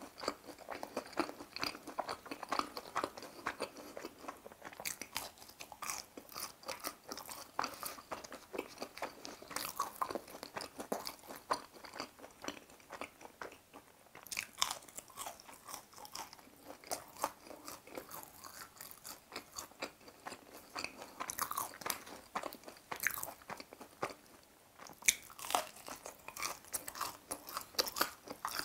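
Crisp crunching bites and chewing of battered deep-fried squid rings, the crunches coming in bunches every few seconds with softer chewing between.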